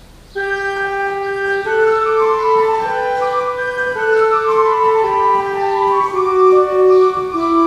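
1738 Volckland baroque pipe organ playing a slow chorale prelude, several voices in long held notes, starting about half a second in.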